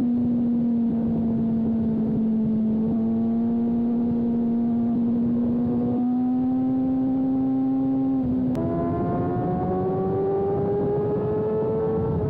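Sport motorcycle engine at high revs on track, heard onboard with wind rush on the microphone. The engine note holds high and drifts slowly, jumps up in pitch with a sharp click about two-thirds of the way through, then rises steadily as the bike accelerates.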